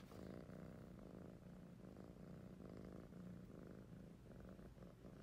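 A kitten purring steadily and faintly, a low, even rumble close to the microphone.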